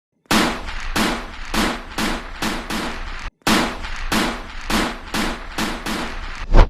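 Rapid gunfire, as from a toy-play gunfight sound effect: repeated sharp shots, each with a short ringing tail, about three a second. The shots come in two runs with a brief gap in the middle, and a louder shot ends the run.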